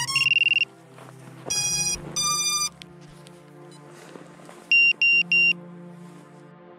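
Electronic startup beeps from an FPV quadcopter just after its LiPo battery is plugged in: a quick run of pulsing tones, two longer buzzy tones about a second and a half in, then three short beeps near the end, over background music.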